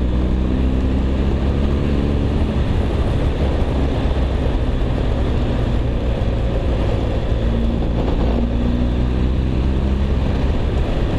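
BMW R 1250 GS Adventure's boxer-twin engine running steadily while riding at road speed, under a constant rush of wind noise.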